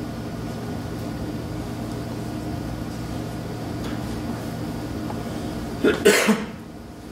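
A steady low hum with several held tones, then about six seconds in a loud cough of two or three quick bursts, after which the hum drops away.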